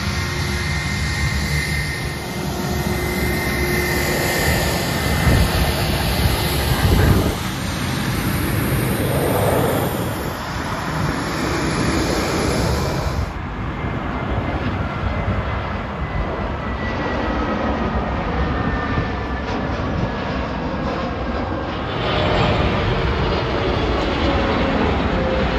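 Jet airliners' engines running as the aircraft taxi close by: a steady jet whine over a low rumble. The sound changes abruptly a little past halfway to a second taxiing Airbus A320, and near the end it turns louder as a Boeing 777 freighter passes on approach.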